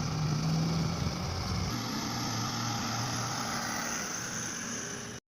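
XCMG XE215 long-reach excavator's diesel engine running steadily, with hydraulic hiss. The engine note drops slightly about a second and a half in, and the sound cuts off abruptly near the end.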